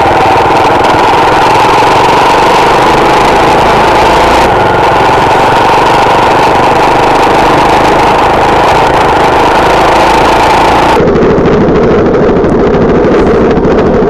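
Honda Tornado 250's single-cylinder four-stroke engine running under way, loud and close, mixed with wind and road rumble. About eleven seconds in the sound changes abruptly to a duller, lower-pitched tone.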